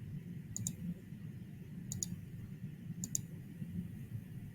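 Computer mouse button clicked three times, each a quick press-and-release double click, over a low steady hum.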